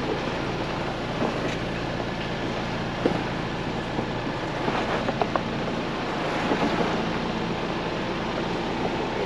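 Ford Bronco Badlands driving slowly over a rough dirt trail: steady engine and road noise with scattered knocks and clunks, a few of them around the middle.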